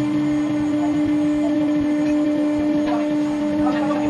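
CNC router spindle running at speed with a steady high whine while its bit cuts a sheet of acrylic.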